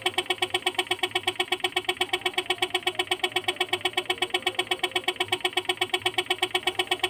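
Homemade air compressor, a belt-driven compressor powered by a 775 DC motor, running steadily while it pumps air into a balloon, with an even, rapid pulsing of about eight compression strokes a second.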